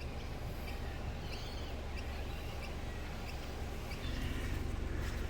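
Faint bird chirps over a steady low background hum that gets a little louder about four seconds in.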